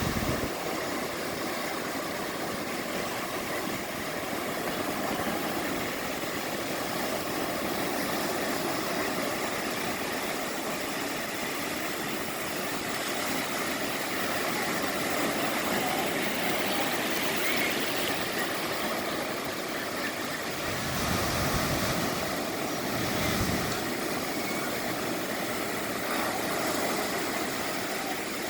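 Ocean surf washing steadily, with wind buffeting the microphone in two low gusts about three quarters of the way through.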